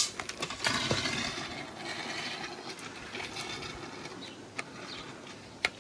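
New small electric pressure washer tried for the first time: a hiss of its motor and water starts about half a second in and fades over a couple of seconds, with a few sharp clicks later. It is not spraying properly, which the owner puts down to the spray nozzle not being fitted.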